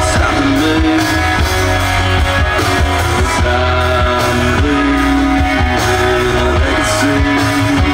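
A rock-style song: a singer's long held notes over guitar and a steady bass line.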